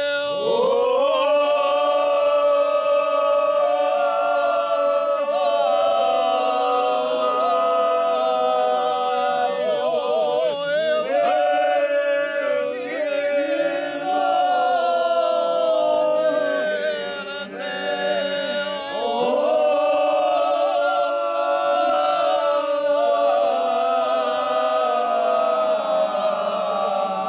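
A group of men singing a bečarac, a traditional folk song, unaccompanied, several voices holding long drawn-out notes together, with a brief break about two-thirds of the way through.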